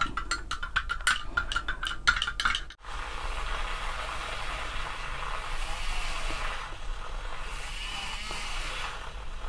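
A metal spoon clinking rapidly against a glass measuring jug while stirring taro powder into hot water. About three seconds in, this gives way to a handheld battery milk frother whirring steadily in the liquid.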